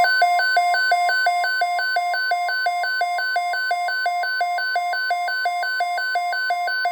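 NOAA Weather Radio's steady 1050 Hz warning alarm tone, with a loud warbling electronic alarm beeping over it about three times a second. It is the alert signal that opens a tornado watch broadcast.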